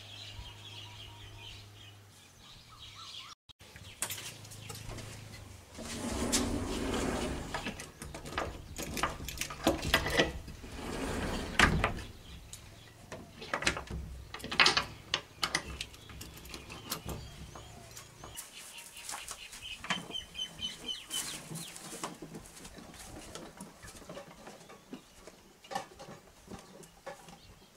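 A wooden cabin door is handled and shut, with a run of sharp knocks, clicks and rattles, the loudest about halfway through. Chickens cluck in the background.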